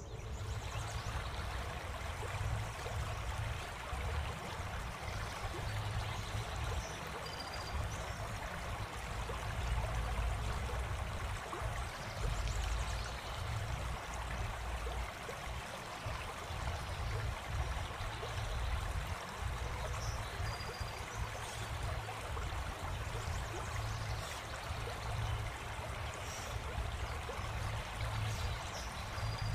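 Steady outdoor ambience: a continuous rushing hiss with wind rumbling on the microphone, and a few faint short high chirps.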